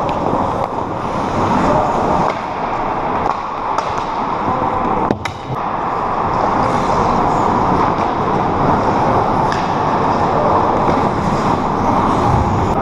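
Ice hockey rink sounds: skates scraping and carving on the ice over a steady, loud noise bed, with one sharp clack about five seconds in.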